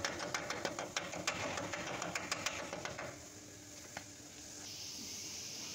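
Rapid metal-on-metal tapping, about five strikes a second, on a pipe driver seating the new rear axle seal and wheel bearing in a Dodge Ram 1500 axle tube; it stops about three seconds in, with one more tap a second later, followed by a steady hiss.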